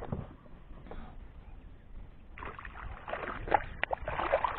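Hooked largemouth bass splashing and thrashing at the water's surface beside a kayak. Quiet at first, then bursts of splashing start about halfway through, with a few sharp slaps.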